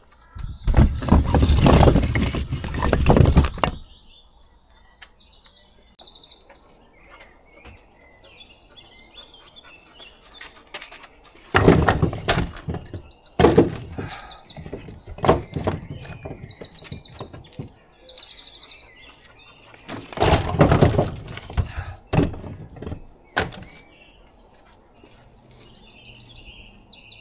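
Small songbirds singing short, rapid high trills several times. Between the trills come several loud bursts of knocking, thumping and handling noise, the loudest about a second in and again near the middle.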